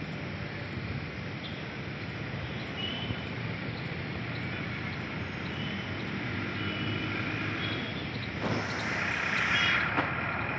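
Outdoor city ambience: a steady hum of distant traffic with a few faint short high chirps. Near the end a louder rushing hiss swells for about a second and a half, ending with a sharp click.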